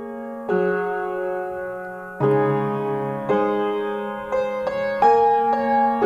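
Soft background piano music: slow chords struck about once a second, each left to ring and fade.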